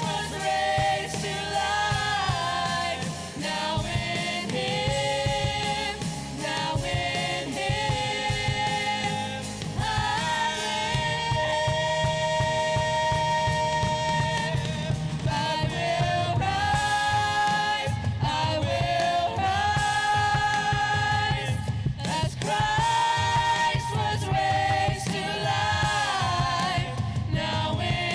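A worship song: a group of singers holding long sung notes over a full band.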